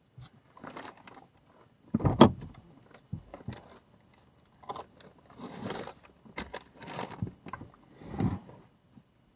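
An insulated food-delivery bag being handled and a takeout bag pulled out of it: a run of rustles, scrapes and clicks, with the loudest knock about two seconds in.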